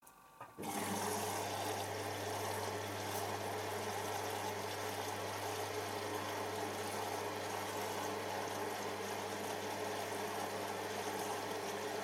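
Hoover Optima OPH714D washing machine with its drum at rest, water running through it under a steady low mains-type hum; the sound starts abruptly about half a second in.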